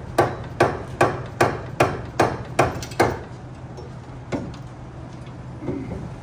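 An orange mallet hammering the end of a Ford 8.8 rear axle shaft with quick, even blows, about two and a half a second for some three seconds, then one more blow a second later. The blows drive the axle shaft inward to free its C-clip.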